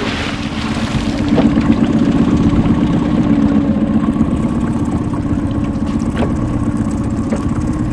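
A baited lobster creel splashes into the sea, the splash dying away within about a second, over the steady idling of the small boat's engine.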